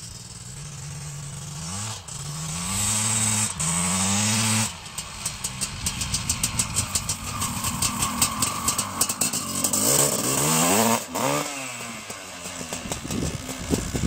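Honda CR500 single-cylinder two-stroke motocross bike being run in, accelerating toward the listener with its engine note climbing in three steps as it shifts up. It passes close by about eleven seconds in, its pitch falling as it moves away.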